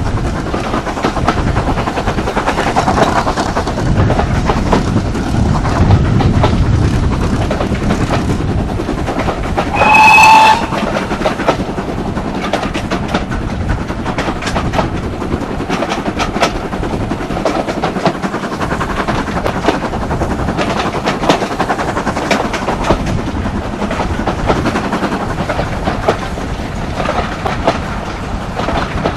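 Heritage train running along with steady rolling noise and irregular rail-joint clicks. About ten seconds in, the locomotive gives one short, single-note warning blast.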